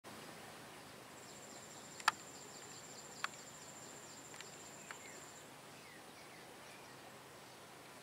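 Faint open-field ambience with a high-pitched, finely pulsing insect trill that starts about a second in and stops about five seconds in. Faint short chirps sound alongside it, and two sharp clicks come about two and three seconds in, the first the loudest.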